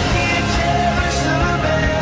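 Background music with a melody line that moves up and down in pitch over a steady low accompaniment.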